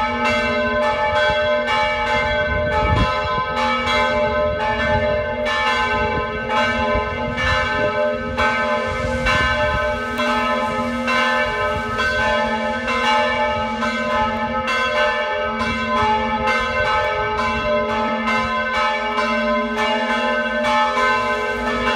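Church bells ringing from the tower: a steady run of strikes about twice a second, each one ringing on and overlapping the next.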